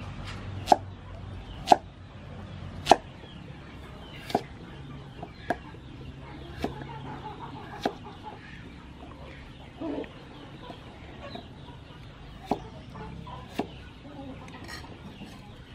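Steel cleaver chopping carrot and potato on a thick wooden chopping board: sharp single chops about a second apart, a pause of a few seconds, then two more chops near the end.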